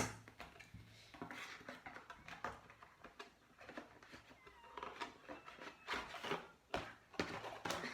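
Packaging rustling, with irregular clicks and crinkles, as glitter pens are worked out of a slime kit's packaging by hand.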